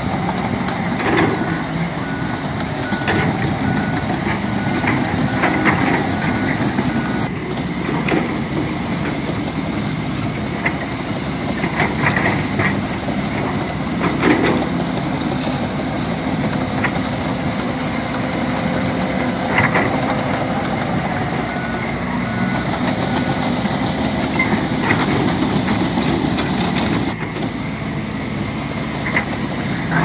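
Diesel engines of a crawler bulldozer, a dump truck and excavators working together, with occasional metallic clanks. A truck's reversing alarm beeps in a short run a few seconds in and again about two-thirds of the way through.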